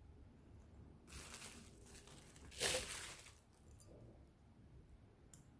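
Rustling of packaging as unboxed merch is handled: a soft rustle about a second in, then a louder, brief crinkle near the middle.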